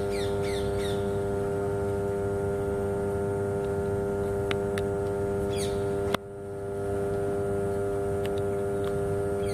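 33/11 kV power transformer humming steadily, a stack of even tones: the normal hum of a power transformer working at high voltage. About six seconds in a click sounds and the hum dips briefly before coming back.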